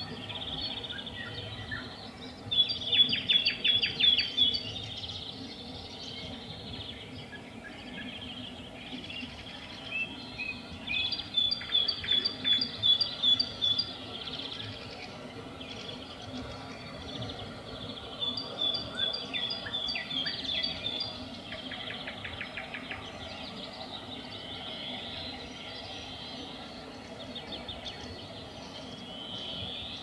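Nightingale singing in phrases of rapid repeated notes and clicks: three main bursts several seconds apart, with shorter snatches between, over a steady low background hiss.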